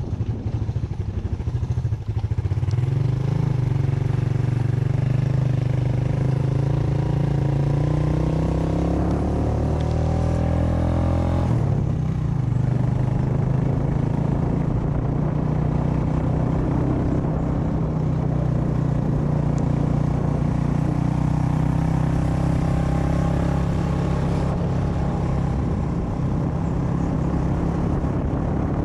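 Motorcycle engine under way. Its pitch climbs steadily for several seconds as it accelerates, drops suddenly at a gear change about twelve seconds in, then runs at a fairly steady speed.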